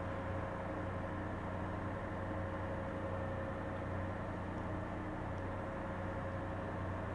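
Steady mechanical hum with a constant thin tone over an even rushing noise, unchanging throughout.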